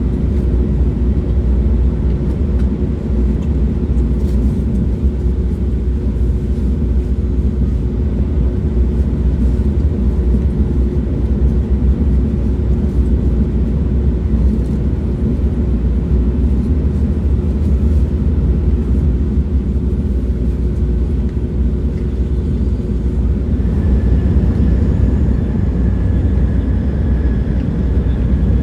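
Passenger train running, a steady low rumble with a humming tone underneath. The hum drops away near the end and a faint high whine comes in.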